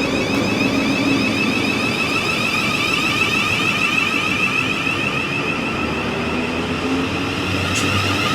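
Electric train running past, a steady loud rumble with a high whine over it.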